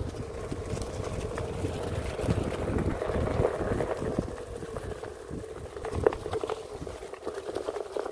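Onewheel electric boards riding a leaf-covered dirt trail: a steady motor hum, with the tyre rumbling over the ground and wind on the microphone. Scattered knocks come from bumps in the trail, the loudest about six seconds in.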